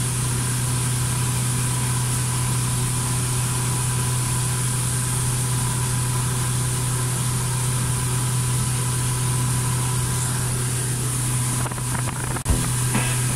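Small fishing boat's engine running steadily under way, a constant low drone with the rush of water and wind over it, heard from inside the cabin. A short knock about a second before the end.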